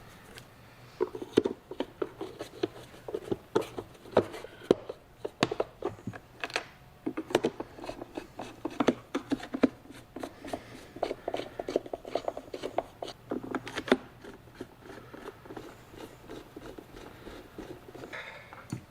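Hands working on a plastic jump box case and tools: irregular clicks, taps and knocks with stretches of rubbing and scraping.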